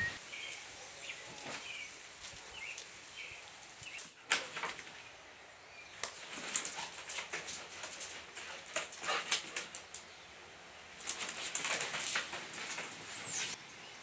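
A few faint bird chirps at first. Then, from about four seconds in, a dog in a plastic cone collar moves about on a tiled floor: irregular bursts of rustling and scraping with sharp clicks.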